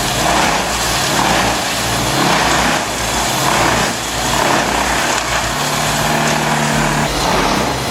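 A large brush chipper running hard, its engine steady under a coarse chipping and grinding noise that swells and fades every second or so.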